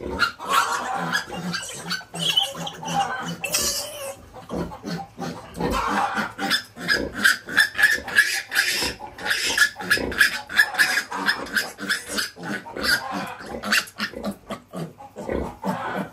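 Piglets squealing and grunting in many quick, short calls, with a fast run of high squeals from about six to eleven seconds in.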